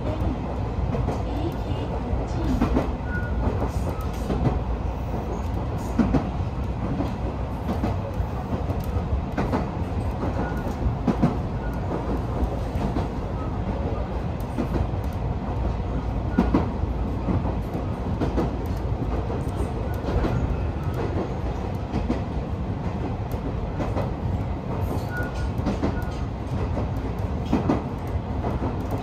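Alpico Kōtsū Kamikōchi Line electric train running between stations: a steady low rumble with sharp clacks from the wheels over the rail joints every few seconds, at irregular intervals.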